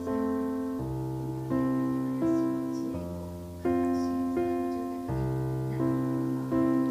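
Background piano music: sustained chords over held bass notes, a new chord struck about every three-quarters of a second.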